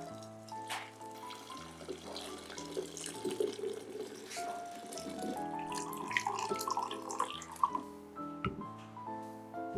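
Liquid pouring from a pot through a mesh strainer and splashing into a glass jug, with background music playing.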